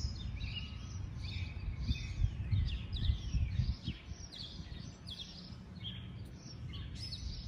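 Several birds chirping and singing, many short quick calls overlapping one another, over a low rumble that eases about four seconds in.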